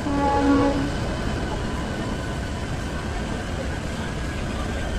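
Busy railway platform ambience beside a standing passenger train: steady crowd and station noise. A short pitched tone, under a second long, sounds right at the start.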